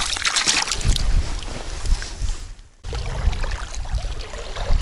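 Wind rumbling on the microphone over the sound of moving river water, with scattered small clicks. The sound cuts out briefly a little past halfway, then the same mix returns.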